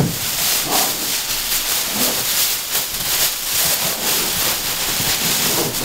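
Clear plastic wrapping crinkling and rustling as it is pulled off a latex prop, a continuous irregular crackle.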